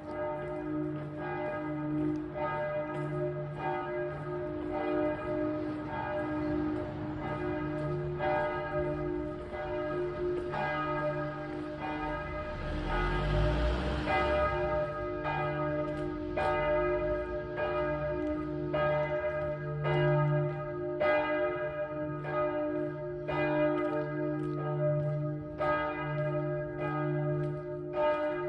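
Church bells, the Notre Dame de la Paix bells, ringing in a continuous peal: overlapping strokes about once a second over a sustained low hum. A brief rushing noise with a low rumble rises and fades about halfway through.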